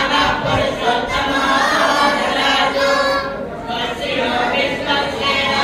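A crowd of voices singing a devotional kirtan chant together, in a continuous run of sung phrases.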